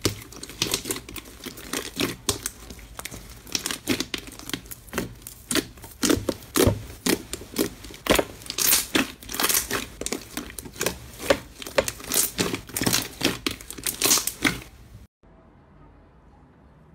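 Purple fluffy slime kneaded, stretched and poked with the fingers in a metal tray, giving a rapid, irregular run of sharp crackling pops. It stops abruptly about two seconds before the end.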